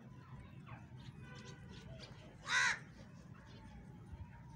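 A single short, loud bird call, crow-like, a little past halfway, over faint chirping of other birds.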